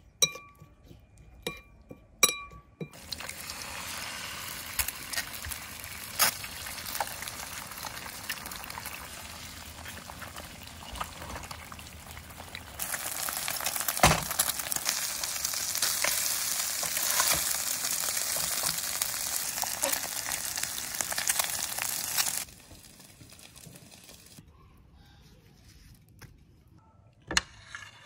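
A metal spoon clinks a few times against a ceramic bowl while stirring a dipping sauce, then food sizzles steadily in a frying pan, getting louder about halfway through as eggs fry in a non-stick pan. The sizzling stops, and near the end come a couple of sharp clinks of a spoon on china.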